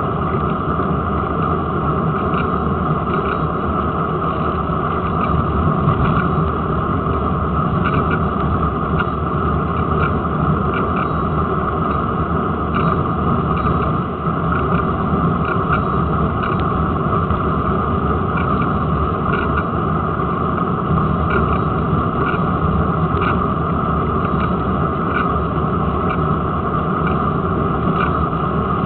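Steady wind and road noise from riding a bicycle, picked up by a camera clamped to the front forks: air rushing over the microphone and the tyre running on tarmac, with small ticks now and then.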